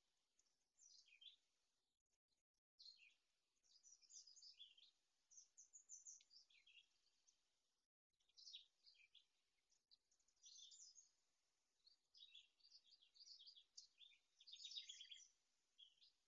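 Faint songbirds singing, many short high chirping and trilling phrases overlapping one another, with two brief moments where the sound cuts out.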